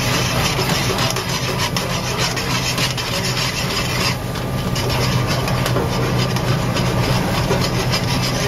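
Metal tongs scraping, clicking and stirring heads-on shrimp in a dark steel pan of butter sauce, in many irregular short scrapes, over a steady low hum.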